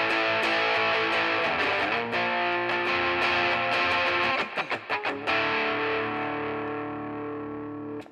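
Electric guitar played through a Boss combo amp with distortion, picked up by a budget AK50 USB condenser mic as a sound test. Busy chordal playing gives way to a few short choppy stabs about halfway through, then a held chord rings out and fades until the sound cuts off near the end.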